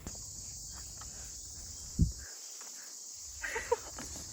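Steady high-pitched drone of an insect chorus, with a single sharp thump about two seconds in and a short faint clatter a little later.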